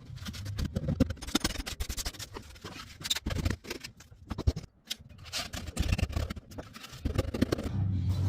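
Irregular scraping, scratching and knocking, like work noise from handling things. A low steady hum starts near the end.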